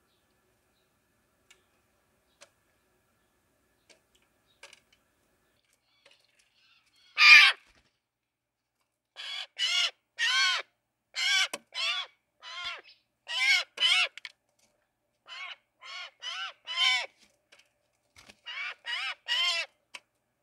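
Harsh corvid calls. One loud call about seven seconds in, then from about nine seconds a run of cawing calls, many in pairs. A few faint ticks come before them.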